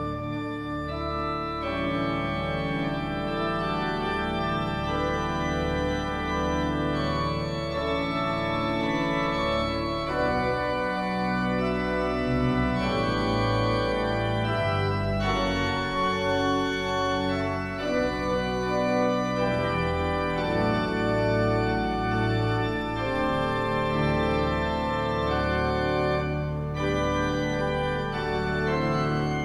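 Church organ playing a slow instrumental piece of held chords over a deep pedal bass line.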